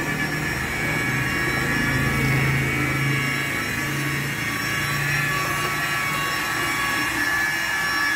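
Steady machine noise from a motor running in the background: a constant high whine over a low hum that swells and fades.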